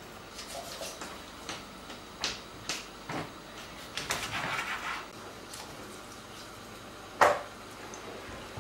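Scattered light knocks and rustles as a raw whole chicken is handled on a wooden cutting board, with one sharp knock about seven seconds in.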